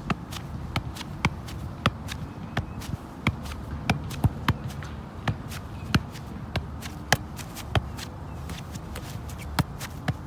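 Soccer ball being juggled: a run of dull thuds from foot and knee touches on the ball, about two a second in a fairly even rhythm.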